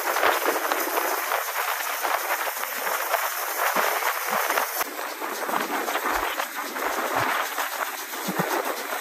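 Steam train hauled by GWR tank engine 4270 running along, heard from a carriage window: a steady rushing noise of wheels on the track and passing air.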